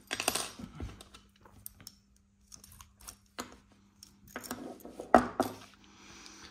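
Small hard parts clicking and clattering as the master-cylinder piston and return spring are pushed out of a Shimano BL-M8000 brake lever body and handled. There is one spell in the first second and another about four to five and a half seconds in.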